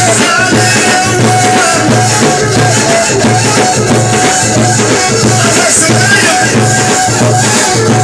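Amplified live folk music: a cane flute plays a wavering, sliding melody over a steady low drum beat of about two beats a second, with rattling percussion.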